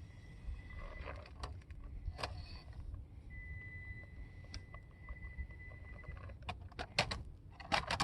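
Small-scale RC rock crawler's electric motor giving a thin steady whine as it creeps over rock, with scattered sharp clicks and clacks of plastic on rock that come thicker near the end.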